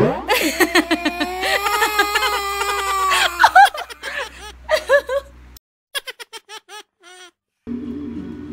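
Toddler crying: one long wail that rises and is held for about three seconds, then shorter sobbing cries that fade. Near the end the sound cuts to a low steady hum.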